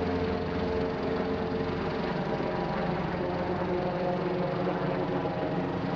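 Large helicopter hovering overhead: a steady drone of rotor and turbine engines, even in pitch and level throughout.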